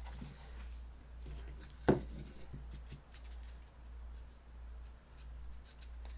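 Paintbrush working acrylic paint onto a canvas: faint, light scratchy strokes and taps, with one sharp knock about two seconds in. A low steady hum runs underneath.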